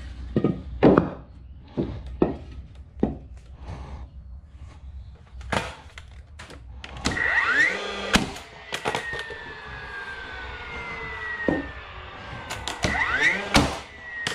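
Pressure-treated 2x6 boards knocking as they are shifted into square, then a DeWalt cordless framing nailer firing twice. Each shot begins with a rising motor whine and ends in a sharp bang as the nail drives into the wood. After the first shot a falling whine runs for several seconds as the motor winds down.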